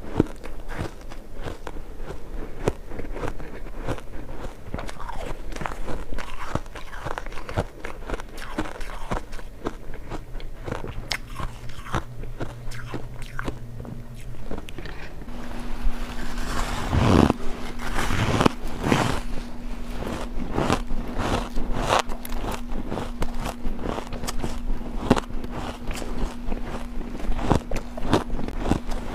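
Close-miked biting and chewing of hard refrozen ice chunks: a dense run of crisp cracks and crunches, with the biggest, loudest bites a little past halfway.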